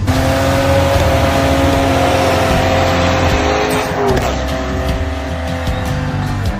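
A car engine held at high revs, with a change in pitch about four seconds in.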